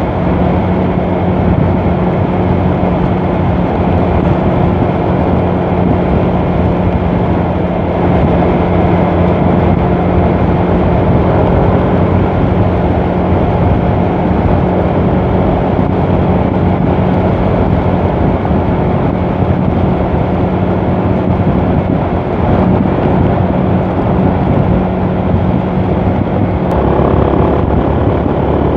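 Yamaha MX King 150 single-cylinder four-stroke engine running through a modified aftermarket exhaust, held at steady revs while riding at speed, over wind rush. The note stays even, changing slightly near the end.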